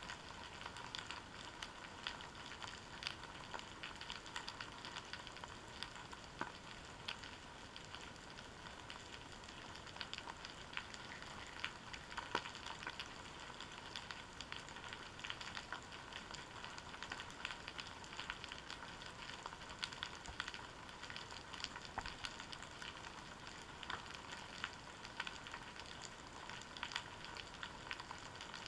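Steady underwater crackling of a kelp-covered seabed, picked up through a GoPro's waterproof housing: an even fizzing hiss made of many tiny clicks.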